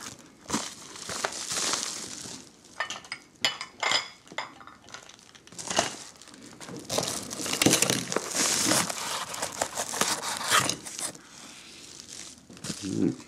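Cardboard mailer, bubble wrap and paper packaging crinkling and rustling as it is handled and pulled open, with scattered sharp clicks and clinks as plastic-encapsulated silver coins are set down on a table.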